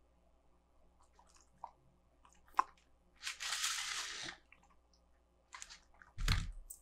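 Close-miked wet mouth sounds from a Shiba Inu licking its lips: scattered clicks and smacks, with a crackly, crunchy noise lasting about a second in the middle and a louder smack with a low thud near the end.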